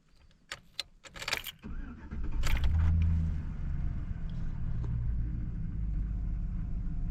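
Keys jangle and click, then a car engine starts, runs loudest for a second or so, and settles into a steady idle.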